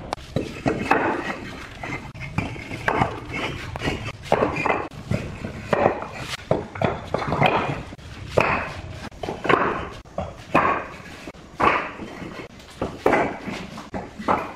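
Fired clay bricks clacking against one another and onto a concrete floor as they are lifted off a wheelbarrow and stacked, a hard knock about every second, echoing in a bare room.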